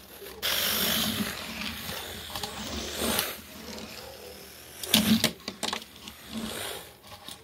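Toy car pushed and scraped across carpet right beside the microphone: a loud rough rustling for about three seconds, quieter after, with a few sharp knocks about five seconds in.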